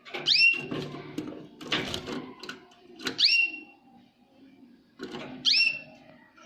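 Jaspe canary giving three loud call notes, each a quick upward sweep that levels off high, about three seconds apart. A brief noisy clatter comes about two seconds in.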